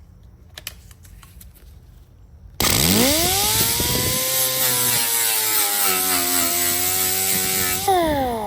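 Electric grinder starting up about two and a half seconds in, with a quickly rising whine, then grinding metal with a steady high whine and hiss that sags slightly in pitch under load. Near the end it winds down in pitch and stops.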